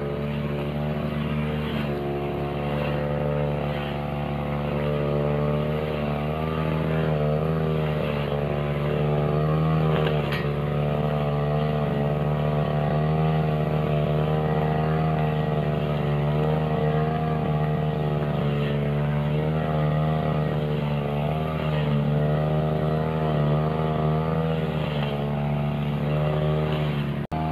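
Tiger two-stroke backpack brush cutter running at working throttle while its blade cuts grass, the engine note wavering up and down as the load changes. It breaks off for an instant near the end.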